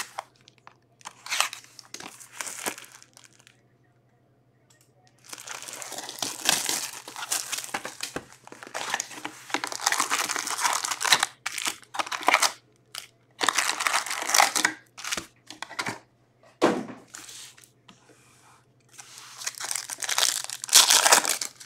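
Plastic wrap and foil card-pack wrappers of an Upper Deck Series Two hockey box crinkling and tearing as the box and a pack are opened: a few short rustles, then long stretches of crinkling and ripping, with one sharp knock in the second half. A faint steady low hum runs underneath.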